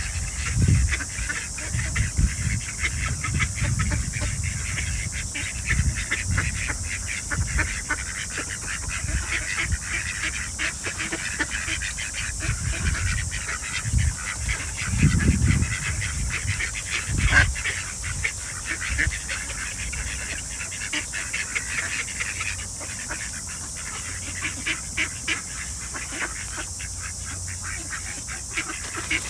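A flock of mallards and white domestic ducks quacking and chattering without pause, many calls overlapping. Under the calls runs a steady high hiss, with bouts of low rumble now and then.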